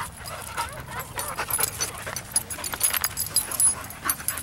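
Two dogs play-wrestling: a quick run of short scuffles and mouthing noises, with a few brief dog vocal sounds among them.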